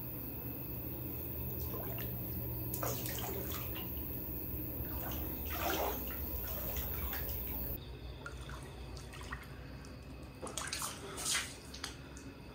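Water in a small bathtub: a steady run of water, with splashes about three seconds in, near six seconds and twice near the end, the loudest around eleven seconds.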